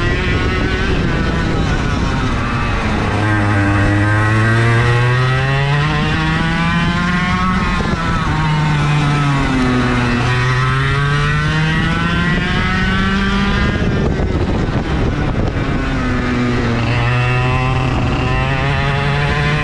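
IAME KA100 kart's 100cc two-stroke engine at racing speed, heard from onboard the kart: its pitch climbs for several seconds and then drops sharply, about three times, as the driver accelerates out of corners and lifts for the next ones.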